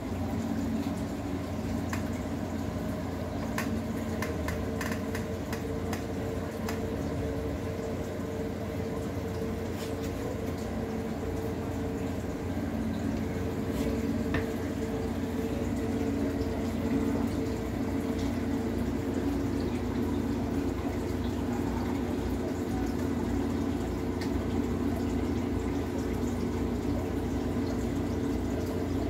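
Aquarium water bubbling and trickling from the tank's air and filter system, over a steady low hum. A few faint clicks come a few seconds in.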